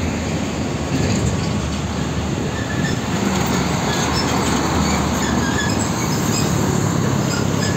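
Heavy cab-over semi truck hauling a shipping container on a trailer passing close by: diesel engine running under a steady heavy rumble of tyres and trailer, with short high squeaks scattered through it.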